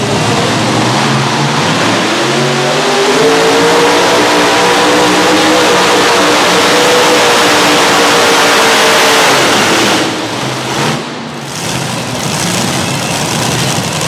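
Multi-engine Unlimited-class pulling tractor with several racing V8 engines at full throttle under load while pulling the sled. The engine note rises over the first few seconds and then holds steady. About ten seconds in, the engines are shut off and the sound drops sharply.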